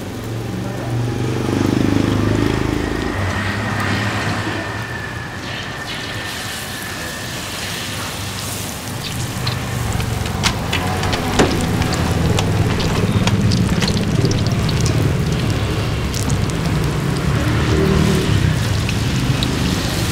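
Hot oil crackling and sizzling as banana fritters deep-fry, over the running engines of passing motorbikes. The crackle grows denser about halfway through.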